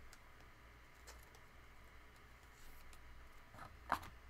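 Faint handling noise of trading cards being slid into plastic card sleeves: light rustling and small clicks, with one sharper tap about four seconds in.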